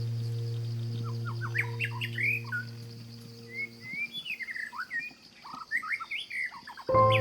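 Birds chirping: many short calls that sweep up and down in pitch, some in quick runs. A low steady musical drone fades out under them about four seconds in, and music comes back in just before the end.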